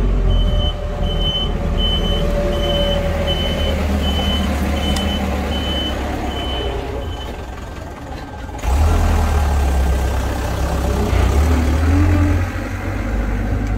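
A vehicle's reversing alarm beeping about twice a second over a steady low engine rumble; the beeping stops about seven seconds in, and the engine gets louder just after.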